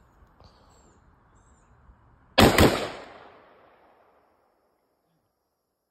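Two shots in quick succession from a 5.56 AR-style pistol, followed by an echo that dies away over a second or so. This is an attempt at bump firing that stops after two rounds instead of keeping the gun cycling.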